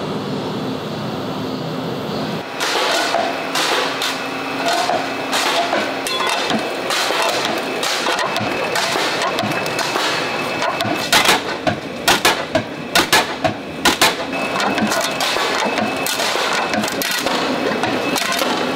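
A low steady hum, then after a couple of seconds a roller machine running as aluminum disc blanks pass between its rollers, with continual clattering and, in the middle, a quick run of about seven loud knocks.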